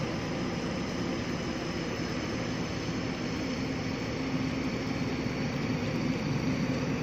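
JCB tracked excavator's diesel engine running steadily under load as it drives its tracks and hydraulics, with a low steady hum that comes in about halfway through.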